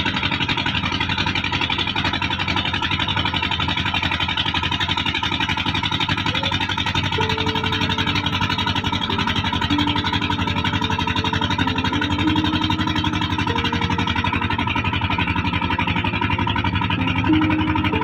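Boat engine running steadily under way, a fast, even throb that holds the same level and speed throughout.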